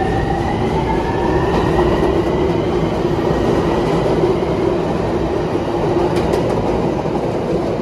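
Miami Metrorail electric train pulling away: a whine from its traction motors rises in pitch over the first couple of seconds as it gathers speed, then holds, over a steady rumble of the wheels on the rails.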